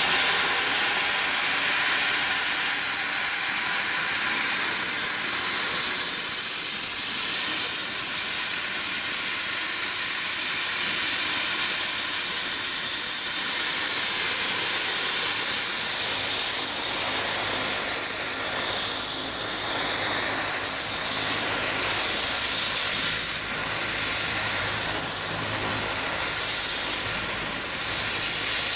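BK117 C-2 helicopter's twin turboshaft engines running up during start-up, with a steady high turbine whine and hiss. A low rotor throb builds in the second half as the main rotor spins up.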